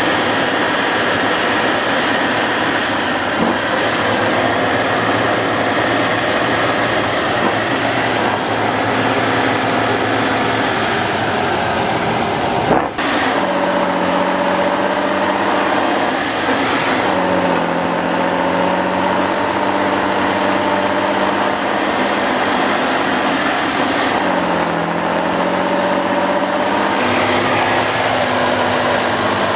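Heavy off-road competition truck's diesel engine working under load on a steep, muddy climb, its revs rising and falling repeatedly as the driver feeds the throttle.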